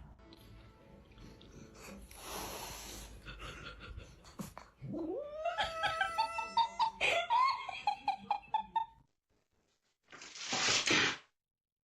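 A cat yowling: a long call that rises sharply in pitch about halfway through, then breaks into a stuttering string of shorter meows. Near the end comes a short hiss-like burst of noise.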